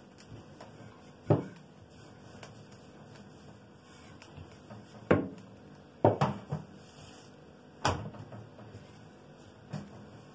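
Wooden rolling pin working yeast dough on a table, with a handful of sharp wooden knocks at irregular intervals as the pin strikes the tabletop.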